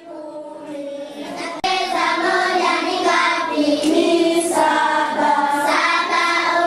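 A class of schoolchildren singing together in unison, sounding like a choir. The singing gets suddenly louder about a second and a half in.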